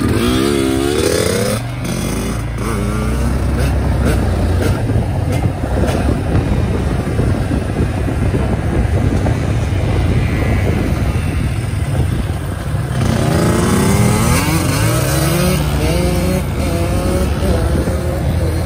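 Dirt bike engines running and revving, pitch climbing and dropping in quick runs about a second in and again about two thirds of the way through as the bikes pull away and shift, over a steady low rumble.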